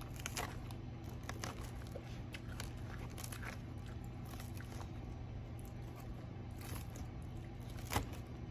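Close-up eating sounds: salad being chewed with soft crunches and small mouth clicks, and a fork picking at lettuce in a bowl, with a sharper click about eight seconds in. A steady low hum runs underneath.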